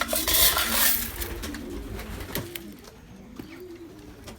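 Several racing pigeons cooing, their calls overlapping, with a loud rustle during the first second.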